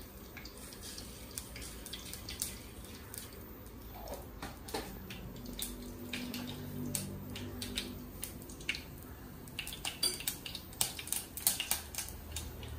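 Mustard seeds in hot coconut oil in a clay pot, sizzling faintly with scattered small ticks that come more often near the end. The clay pot heats slowly, so the seeds have not yet fully popped.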